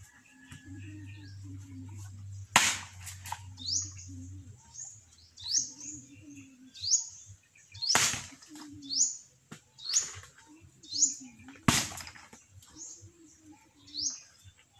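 Three heavy chops of a machete (bolo) blade into coconuts: one about two and a half seconds in, one at eight seconds and one near twelve seconds. Between the chops, a bird repeats a short rising chirp about once a second.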